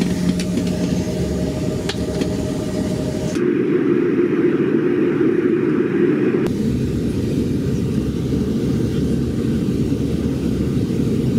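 Airliner cabin noise: the steady low rumble of jet engines and rushing air, heard from inside the cabin by a window seat. The sound changes abruptly twice, about three and a half and six and a half seconds in, with a faint steady hum in the first part.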